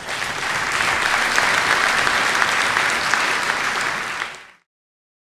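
Audience applauding, a dense steady clapping that cuts off suddenly about four and a half seconds in.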